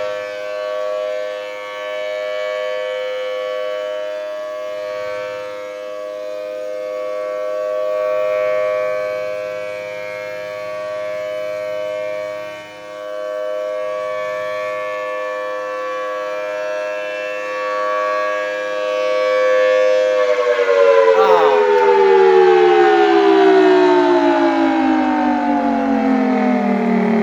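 Federal Signal Thunderbolt 1000T outdoor warning siren sounding a steady tone that slowly swells and fades in loudness. About two-thirds of the way through it begins winding down, its pitch falling steadily.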